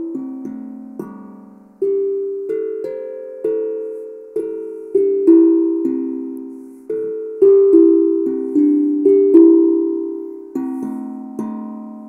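Steel tongue drum struck with rubber-tipped mallets, picking out a simple melody one note at a time. Each note starts sharply and rings on, slowly fading, at an uneven pace of about one to two notes a second, with some notes left sounding under the next.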